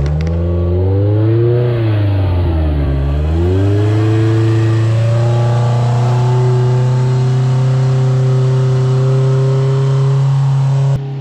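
Polaris RZR side-by-side engine revving hard on a hill climb: the revs rise and fall a few times, then hold steady and high under load. The sound changes abruptly near the end.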